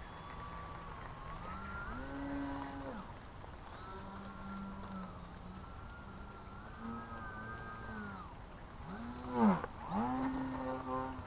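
Electric outrunner motor and propeller of a small foam 3D RC plane (Sunnysky 1800kv outrunner, GWS 8x4.3 prop) droning through repeated throttle changes, the pitch holding for a second or two and then rising or falling. About nine and a half seconds in the pitch dips sharply and climbs straight back, at its loudest.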